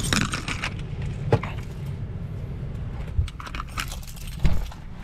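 Small metal pieces jangling and clicking as a leather handbag with metal buckles is handled, with a sharp knock about a second in and a louder thump near the end, over a steady low rumble of the car cabin.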